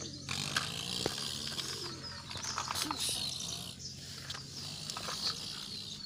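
Birds chirping repeatedly in the background, with a few light clicks.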